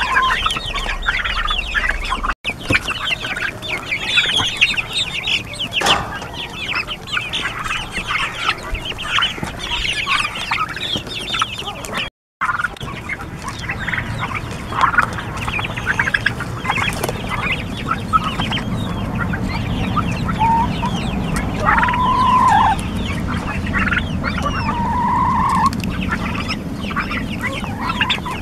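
A flock of young turkeys feeding, with a constant chatter of short chirps and peeps and a few longer whistled calls near the end. The sound drops out completely twice, briefly.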